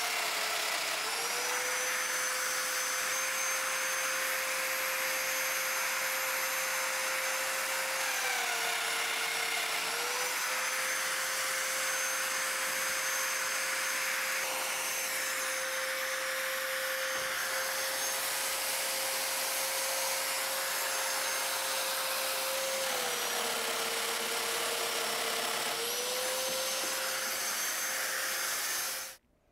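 Festool Domino joiner cutting mortises for floating tenons in an oak nosing, running with its dust extractor: a steady motor whine over vacuum rush. The whine dips slightly in pitch three times as the cutter works into the wood. The sound cuts off suddenly near the end.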